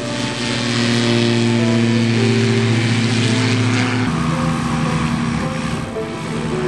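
Light aircraft piston engine and propeller running steadily close by on the ground. About four seconds in, the engine note changes abruptly to a different steady pitch.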